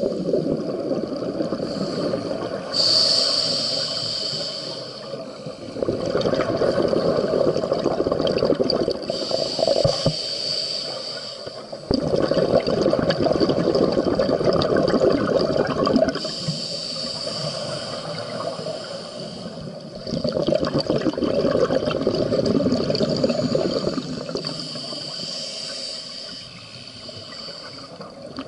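Scuba regulator breathing underwater: long bubbling exhalations of about four seconds each, roughly every seven or eight seconds, with a thin hiss of inhaling between them.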